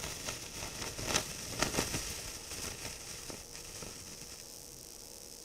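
A senko hanabi (Japanese paper-twist sparkler) in its first moments after lighting: the burning tip fizzes with a hiss and a few sharp pops in the first two seconds. The hiss fades after about three and a half seconds. This is the early stage, before the spark crackling begins.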